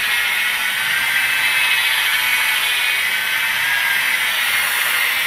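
Electric car polisher with a foam pad running steadily at its lowest speed, spreading a pre-coating polish over the paint without pressure or heat.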